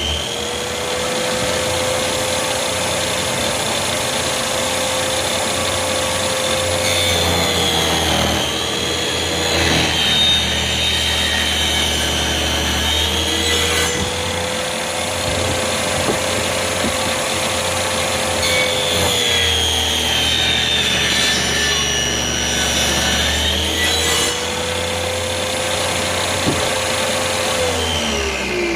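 Saw on a job-site-built table saw running steadily and cutting wood. Its motor note sags and breaks under load in two long stretches, the first about seven seconds in and the second about two-thirds of the way through. Near the end it is switched off and winds down with a falling pitch.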